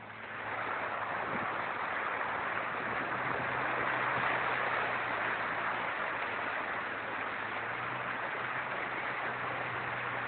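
A vehicle's low engine hum under a steady rushing of floodwater, which swells about half a second in and holds on.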